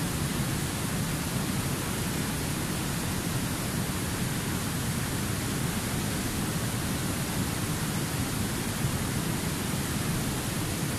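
Swift river rapids rushing over rocks in a steady, unbroken wash of water noise.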